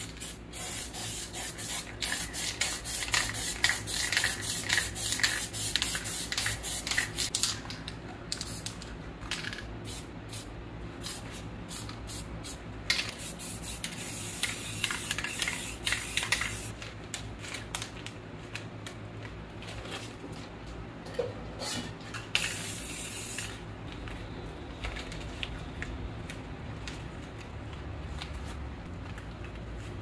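Aerosol spray paint cans hissing in quick repeated short bursts, then a longer spray around the middle and one brief blast a little later; the spraying stops for the last several seconds.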